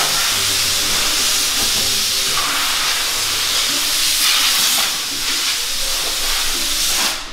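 A steady, loud hiss that cuts off suddenly near the end.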